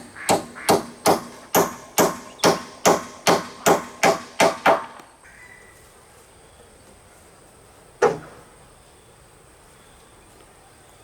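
A hammer striking in a steady rhythm, about two to three blows a second, that stops about five seconds in; one more single blow comes a few seconds later.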